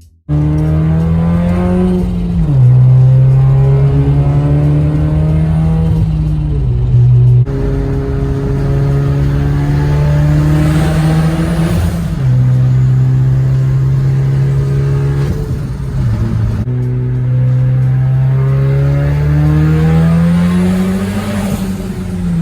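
Audi A4's turbocharged engine accelerating through the gears, its pitch climbing steadily and then dropping sharply at each upshift, about four times.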